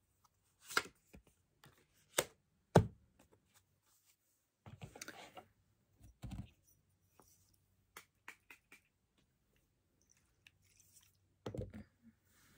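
Tarot cards handled and set down on a cloth-covered table: a few sharp taps and clicks in the first three seconds, then mostly quiet with scattered faint ticks and two short rustles.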